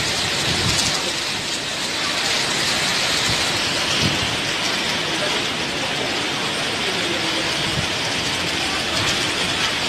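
Heavy tropical-cyclone rain and wind: a dense, steady hiss of downpour, with a few brief low swells where gusts hit.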